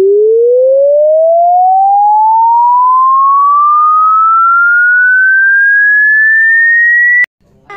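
A single pure electronic tone gliding steadily upward in pitch, from a low hum to a high whistle, and cutting off suddenly about seven seconds in. It is the rising test tone of the dog sound challenge, played to see how a dog reacts.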